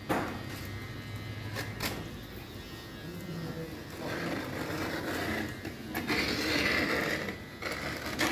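Handling noise from working on a skateboard deck and its grip tape: a few light knocks, then from about four seconds in a few seconds of rustling and scraping.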